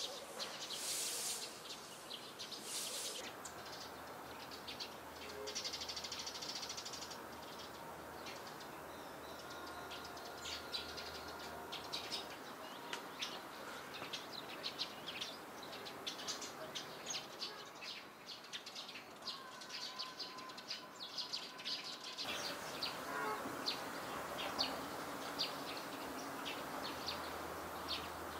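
Small birds chirping, with many short, high chirps over a steady background hiss. The background changes abruptly about three-quarters of the way through.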